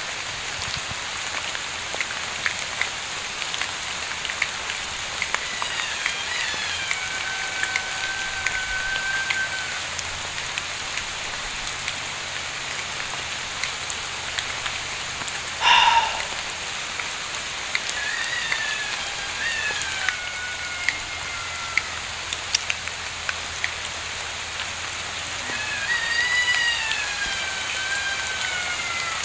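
Steady rain on the forest with three long, cat-like calls from an unseen animal, each lasting a few seconds and mostly sliding down in pitch: about six seconds in, around eighteen seconds in, and near the end. A short, loud cry sounds just before the middle. Villagers call the animal a kerut.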